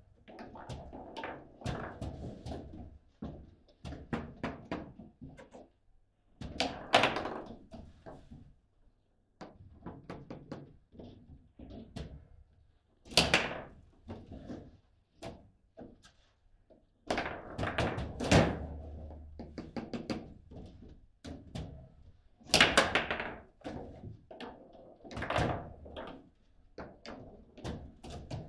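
Foosball table in play: an irregular run of sharp knocks and clacks as the rod figures strike and trap the ball and the rods bang against the table, with several much louder hits among them.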